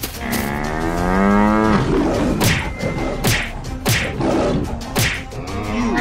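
A cow's long moo, pitched and about a second and a half long, dropping at the end, used as a sound effect in an animated animal fight. A second moo starts near the end. Sharp hits and whip-like cracks sound at intervals throughout.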